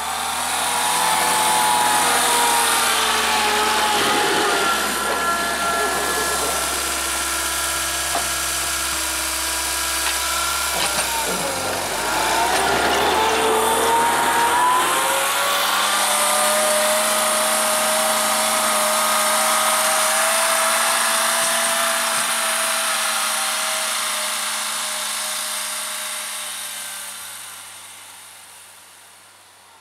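Homemade tractor's four-cylinder VAZ classic (Lada) petrol engine running under load while pushing snow with a front blade, its engine speed rising and falling, dipping about twelve seconds in and then holding steady. The sound fades over the last few seconds as the tractor drives away.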